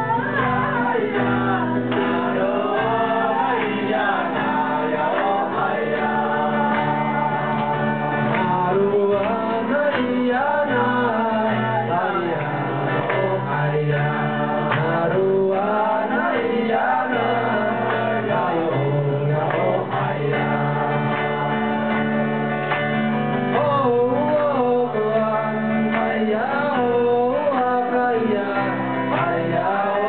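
A group of men singing a song together over live guitar accompaniment, with the voices steady and continuous throughout.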